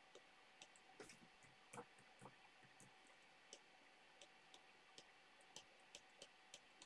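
Near silence with scattered faint, irregular clicks and taps of a stylus writing on a tablet screen.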